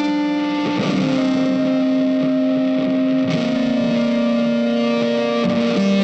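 Background music: slow, long-held electric guitar notes with effects, the note changing about every two and a half seconds.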